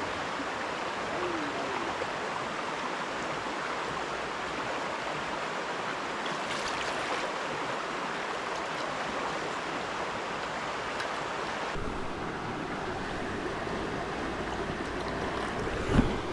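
Steady rushing of a shallow trout river's current. Near the end comes one short, low thump, the loudest moment.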